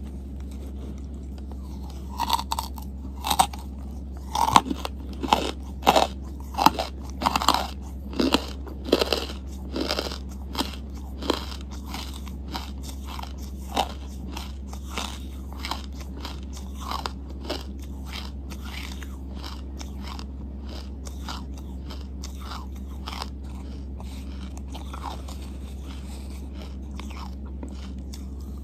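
Close-miked biting and chewing of hard charcoal chunks: a run of loud, crisp crunches through the first half, then softer, sparser chewing.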